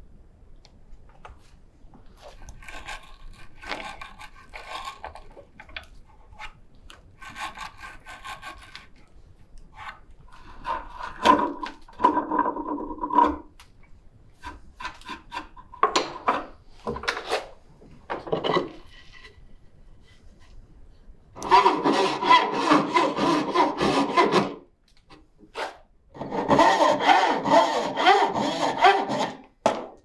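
A wooden bow saw (turning saw) cutting wood by hand, in two long runs of steady back-and-forth strokes in the second half. Before that come quieter, shorter spells of hand tools rubbing and scraping on wood.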